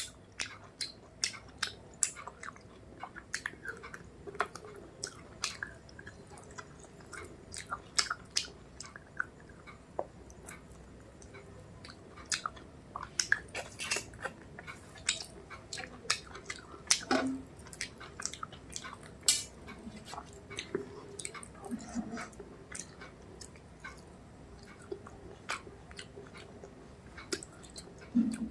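Close-up chewing and eating of rice and mutton curry, with many short, sharp mouth clicks coming irregularly throughout.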